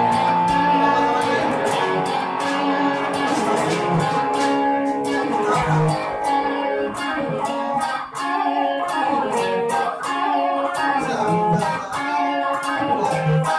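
Two electric guitars playing together, with a drum kit keeping a steady beat.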